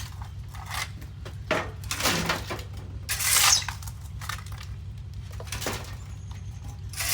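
A few short scraping, rustling bursts over a steady low hum.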